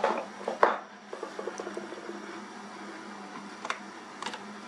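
Hand work on a garage door opener's capacitor mount: two sharp clicks, then light clattering of small parts, and a couple of faint clicks near the end, over a steady low hum.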